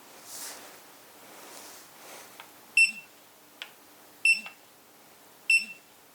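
Retekess TD177 keypad transmitter giving three short, high electronic beeps as keys are pressed, each with a brief low buzz from its vibration feedback, and faint button clicks between them.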